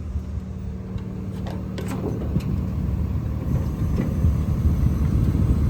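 Diesel engine running steadily, with a few light clicks about a second and a half in; the rumble grows louder and rougher over the last couple of seconds.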